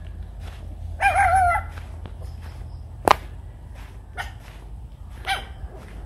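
A rooster crowing once, briefly, with a wavering pitch, about a second in. A single sharp click follows about three seconds in, over a steady low rumble.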